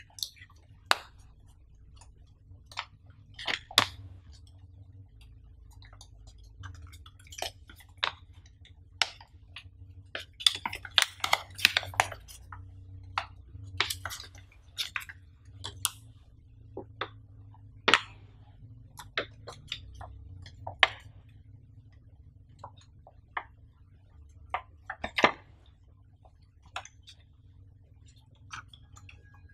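Paper leaflets, a warranty card and a plastic-bagged CD being handled and drawn out of a cardboard box: irregular crisp rustles, crinkles and light taps, over a faint steady low hum.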